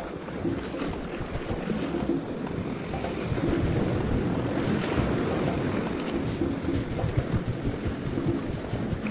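Sea waves washing and foaming against shoreline rocks, with wind buffeting the microphone, swelling a little in the middle.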